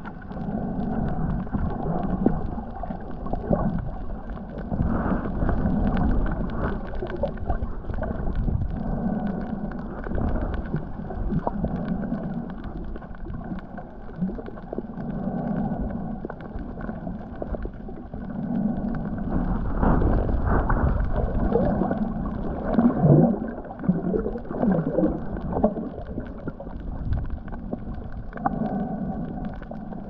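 Muffled water noise picked up by a camera held underwater, with low rumbles that swell and fade every few seconds and faint clicking throughout.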